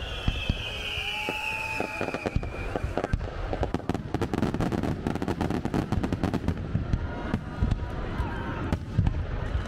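Fireworks going off in a dense run of rapid crackles and bangs, with a whistling shell falling slowly in pitch over the first couple of seconds.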